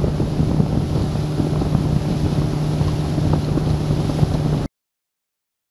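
Small boat underway: a steady engine hum under wind buffeting the microphone and the rush of water. It cuts off abruptly to silence about four and a half seconds in.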